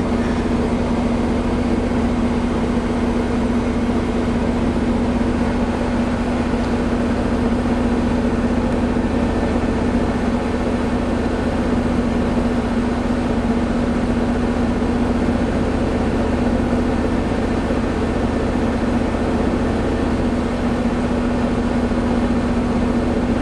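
1979 Dodge pickup's 318 V8 idling steadily, heard from inside the cab while it warms up: an even, unbroken hum.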